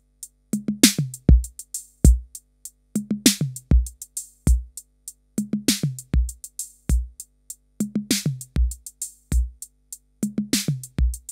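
Drum machine beat (kick, hi-hats and toms falling in pitch) playing through a simple DIY analog diode-VCA compressor while its logarithmic compression-ratio knob is turned, changing how hard the peaks are squashed. The kick lands about every 0.8 s and the pattern repeats about every 2.6 s.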